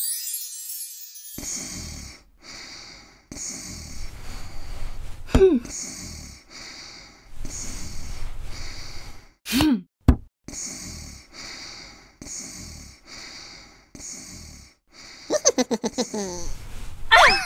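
Cartoon cat voice effects: short high squeals about five and nine and a half seconds in, over a soft pattern that repeats about once a second, then a rapid giggling laugh from being tickled with a feather, ending in a rising squeal.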